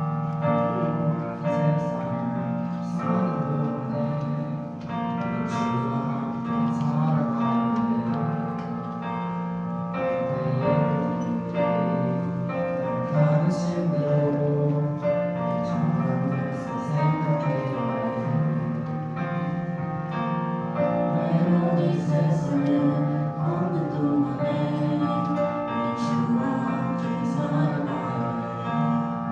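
Worship music led by piano and keyboard, with held chords over a steady low bass.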